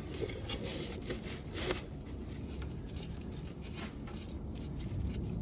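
Faint, scattered light clicks and scraping of hand tools and loose bolts as the top-cover bolts of a power steering box are worked out.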